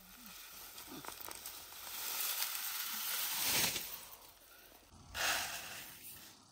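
Cut long grass and reed stalks rustling and swishing as a bundle is handled and spread on the ground, loudest from about two to four seconds in, with another short swish about five seconds in.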